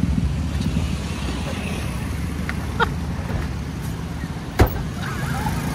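A car engine running steadily with a low rumble. A few small clicks, then one sharp thump about four and a half seconds in.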